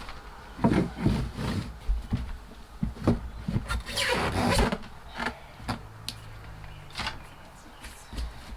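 E-bike being loaded into the back of a toy hauler trailer: scattered clunks and knocks, with a longer scraping rattle about four seconds in.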